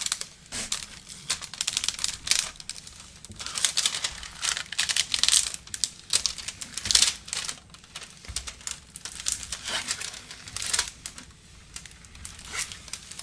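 Clear plastic cover film on a diamond painting canvas crinkling and rustling in irregular scratchy bursts as it is scraped with a triangular straightener tool and pressed flat by hand to smooth out wrinkles.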